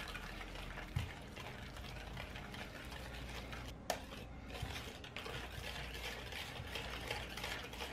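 Wire whisk beating runny cookie batter in a ceramic bowl: steady, rapid wet stirring with the wires scraping the bowl, and one sharper click of the whisk against the bowl about four seconds in.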